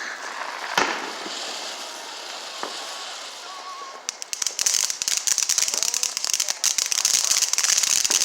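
Consumer fireworks: a sharp bang about a second in, a hiss, then dense, rapid crackling that starts about four seconds in and grows louder.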